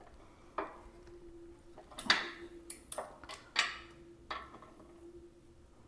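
A 12 mm steel wrench clinking and clicking against a motorcycle bolt as it is fitted and turned to loosen the bolt: about seven sharp metallic clicks with short scrapes, at uneven intervals.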